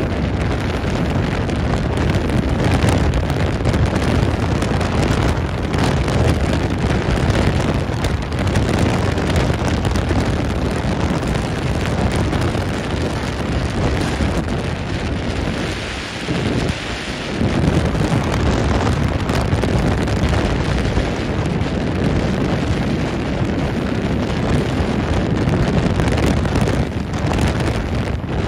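Wind buffeting the microphone of a moving boat, mixed with the rush of the boat through the water: a loud, steady rush with a brief lull a little past halfway.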